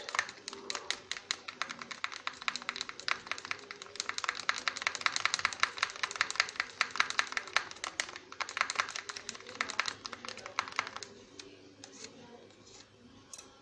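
Wooden stick stirring a thick mixture of shampoo and hand wash in a clear bowl, with rapid, irregular clicking as the stick knocks and scrapes around the bowl. The stirring stops about eleven seconds in.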